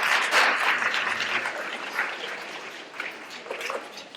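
Audience of schoolchildren applauding, loud at first and dying down toward the end.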